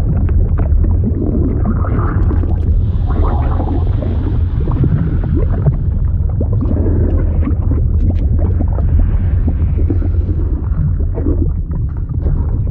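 Fluid sound effect: a steady deep rumble of churning liquid, with many small gurgling pops over it.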